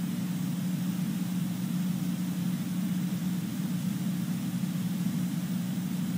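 Steady low hum with a faint hiss and no breaks: the background tone of an auditorium during a silent pause.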